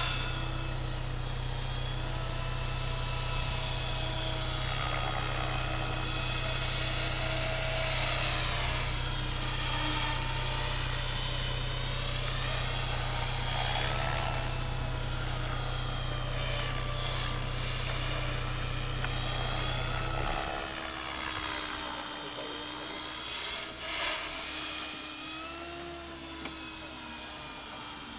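Align T-Rex 500 electric RC helicopter with a Scorpion brushless motor in flight: a high steady whine from motor and rotor head, its pitch wavering up and down as it manoeuvres. A low steady hum underneath cuts off about two-thirds of the way through.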